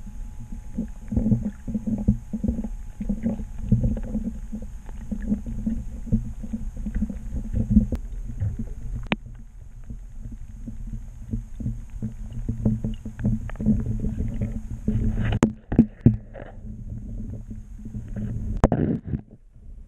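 Muffled underwater rumble and water movement heard through a submerged camera housing, with many small clicks and a few sharper knocks near the end.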